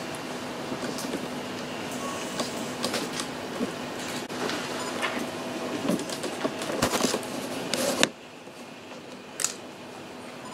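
Room tone with a steady hum, overlaid by scattered small clicks and rustles of paper and pens being handled during a document signing; about eight seconds in the sound drops suddenly quieter.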